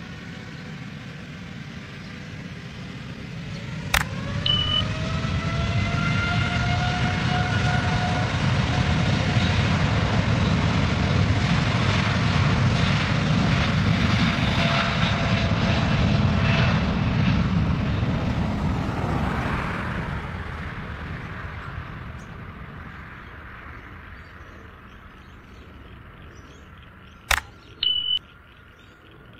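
Jet engines of a Boeing 787-9 Dreamliner, likely Rolls-Royce Trent 1000s, spooling up with a rising whine about four seconds in. The sound builds to loud, steady jet noise and then fades away over the last third. Twice, about four seconds in and near the end, a sharp click is followed by a short high beep.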